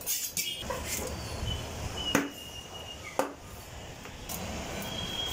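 Two sharp knocks of a heavy curved knife striking the wooden chopping block, about a second apart, as a whole fish is cut up.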